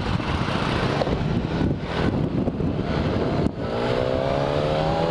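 Motorcycle engine running under way, with wind noise on the microphone. After a brief dip about three and a half seconds in, the engine note climbs steadily as the bike accelerates.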